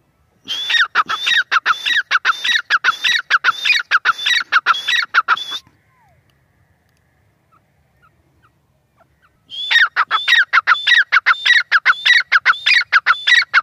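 Grey francolin (teetar) calling: two long bouts of loud, shrill notes repeated quickly, about three a second, with a quiet pause of some four seconds between the bouts.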